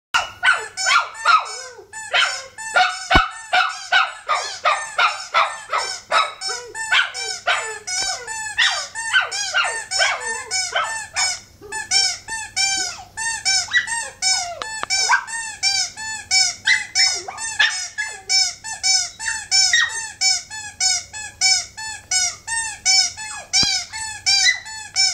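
Small shaggy dog 'singing': a long unbroken string of short, high whining yips, about three a second, louder and more crowded in the first half.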